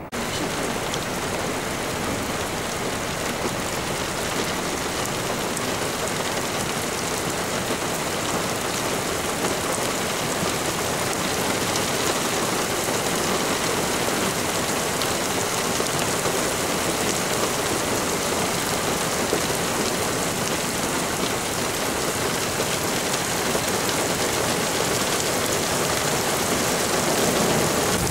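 Heavy rain falling steadily, a dense even hiss, with a low rumble building near the end.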